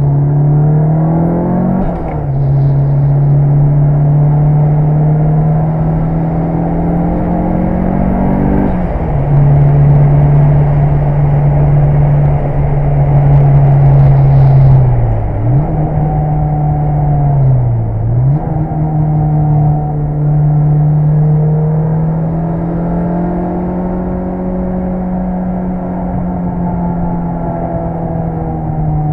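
Mitsubishi Lancer Evolution 6 Tommi Makinen Edition's turbocharged four-cylinder engine pulling hard. Its pitch rises through the revs and falls suddenly at a gear change about two seconds in and again at about nine seconds. The pitch dips briefly twice around the middle, then the engine runs at a fairly steady speed.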